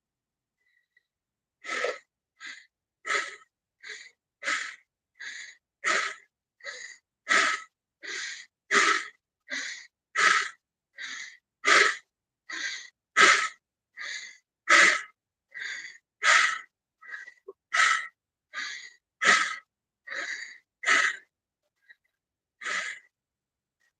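A person doing rapid, forceful breathing, each strong breath followed by a weaker one in an even rhythm of about one in-out cycle every second and a half. The breathing starts about two seconds in and stops shortly before the end.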